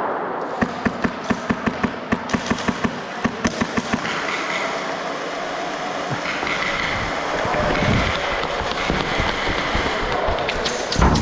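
Airsoft rifle firing a quick string of shots, about four to five a second, for a few seconds, then only occasional single shots over a steady background hiss.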